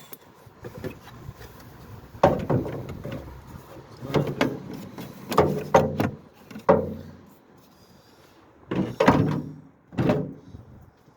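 A series of sharp clunks and knocks, about nine, some in quick pairs, each ringing briefly.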